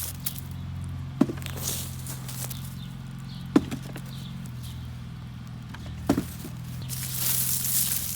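A shovel digging potatoes out of garden soil: three sharp strikes as the blade is driven in, about two and a half seconds apart, then loose soil crumbling and scraping near the end, over a steady low hum.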